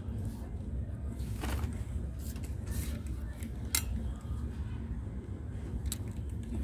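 Clothes hangers clicking and clinking against a metal clothing rail a few times as garments are pushed along, over a steady low hum of shop background noise.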